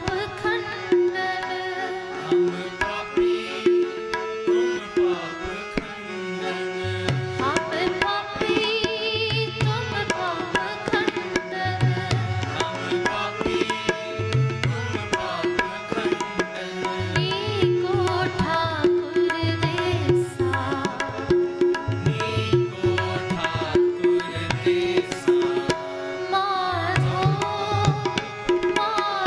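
Instrumental music of a shabad kirtan (Sikh devotional hymn): a melodic instrument plays over a steady drone. Tabla comes in about seven seconds in.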